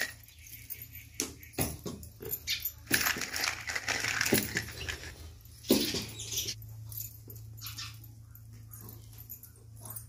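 A dog whimpering and yipping, mixed with sharp clinks of metal plates being handled on concrete.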